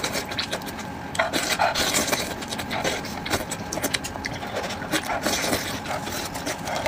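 Cooked sheep's head being pulled apart by plastic-gloved hands: a dense run of small wet clicks, squelches and rubbing, with chewing mixed in.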